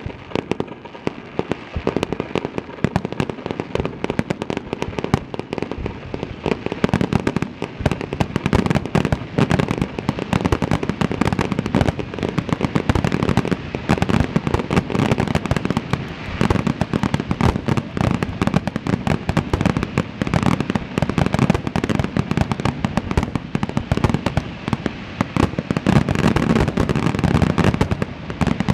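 Star mine fireworks barrage: many aerial shells launching and bursting in rapid succession, an almost unbroken volley of bangs that thickens about two seconds in.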